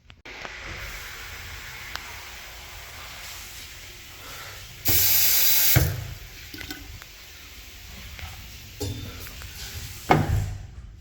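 Water running steadily through a restroom plumbing fixture, with a much louder hiss lasting about a second around five seconds in and a few short knocks near the end.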